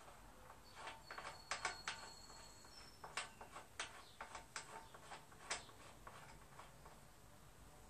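Light metal clicks and taps from a nut being worked by hand onto a go-kart's front wheel axle at the hub: a cluster of clicks about a second in, then single ticks every half second or so.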